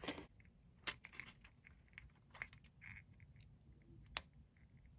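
Faint crackling and scattered sharp clicks of thick clear sticky tape as fingers press and handle a small tape cube filled with foam balls. The loudest click comes about four seconds in.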